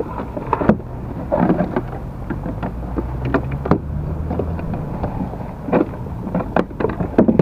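Pedal-drive kayak being pedalled: a steady low rumble with scattered sharp knocks and clicks from the drive mechanism and knocks on the plastic hull.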